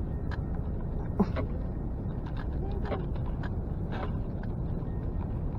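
Steady low outdoor rumble with scattered light clicks, and one sharper knock about a second in.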